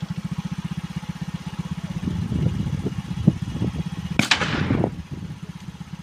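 A single gunshot about four seconds in, a sharp crack with a short fading tail, over the steady low chug of an idling engine.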